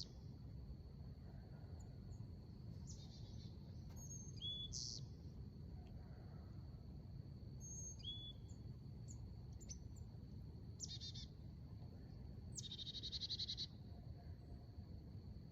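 Wild birds calling outdoors: several short, high whistled notes and two or three rapid chattering bursts, the loudest of them about two-thirds of the way through. Underneath runs a steady high-pitched whine and a low background rush.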